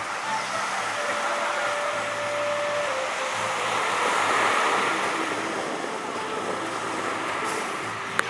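Steady outdoor rush of wind on the microphone and gentle surf, swelling about four seconds in, with a single sharp click near the end.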